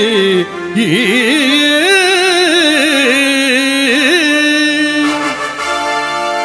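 Carnatic-style music: a single melodic line sliding and wavering through ornamented turns for about five seconds, then giving way to steady held chords.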